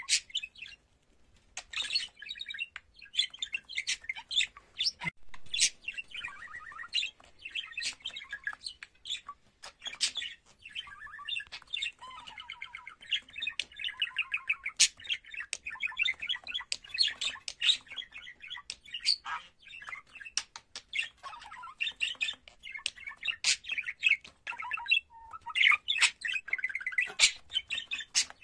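Male budgerigar warbling: a long, running stream of quick chirps, clicks and chattering notes, pausing briefly about a second in and again near the end.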